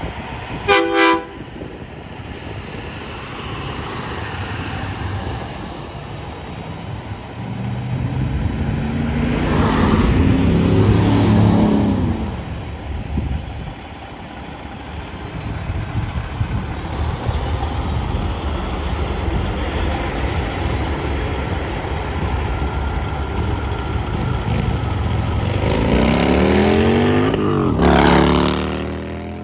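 A semi-truck horn gives a short blast, then a big-rig diesel pulls out and passes, its engine swelling loudest about ten seconds in. Near the end a cruiser motorcycle goes by close, its engine note falling in pitch as it passes.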